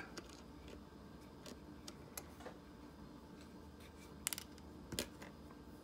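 Faint, scattered small clicks and taps of a slot car's metal rear pod and axle being slid and handled on a chassis jig, with a sharper double click about four seconds in and another click a moment later.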